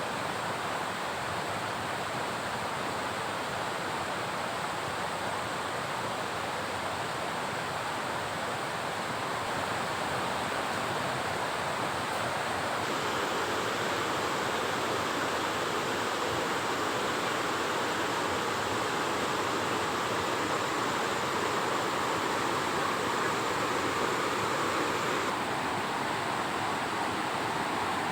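Steady rushing water noise, a little louder from about halfway through.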